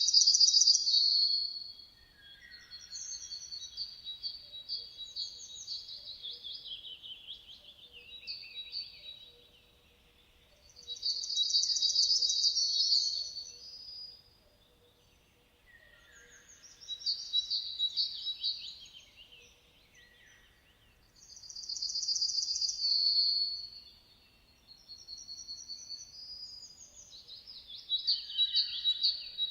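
Songbird song: phrases of fast, high trills and warbles, each lasting two to three seconds, repeated every few seconds with short pauses between.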